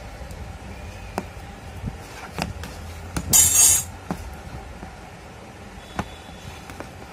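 Handling a smartphone's cardboard retail box: a few scattered small clicks and taps, and about three and a half seconds in a loud half-second scrape as the paper sleeve slides off the box. A steady low hum runs underneath.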